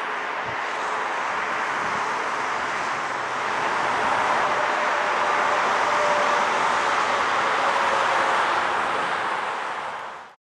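Boeing 737 MAX 8's CFM LEAP-1B turbofan engines running with a steady jet rush as the airliner rolls along the runway. The noise swells about four seconds in, then fades out near the end.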